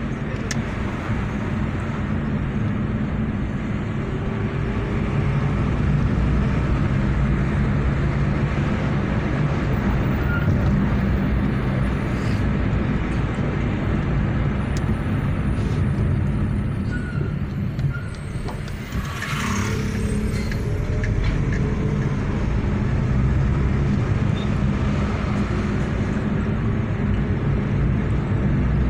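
Car driving along a city avenue, its engine and tyre noise steady as heard inside the cabin, with the engine note climbing slowly now and then as it pulls away. A brief hiss about two-thirds of the way through.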